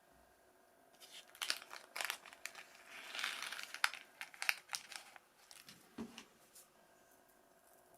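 Plastic packaging crinkling and rustling in bursts, with sharp clicks, as it is handled.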